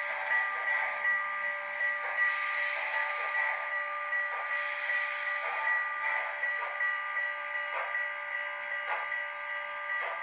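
Sound decoder in an HO scale model of the Canadian National 6060 steam locomotive, playing steam hiss and chuffs through its small speaker over a steady high-pitched tone. From about halfway in, a series of short clicks comes every second or so.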